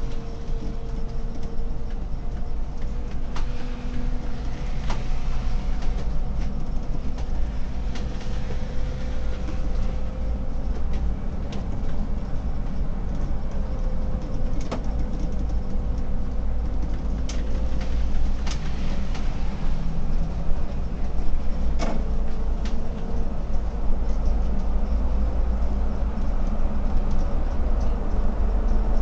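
Solaris Urbino 18 IV articulated city bus driving, heard from the driver's cab: a deep steady rumble with a faint whine that wavers in pitch, and scattered sharp clicks and rattles. It grows slightly louder in the second half.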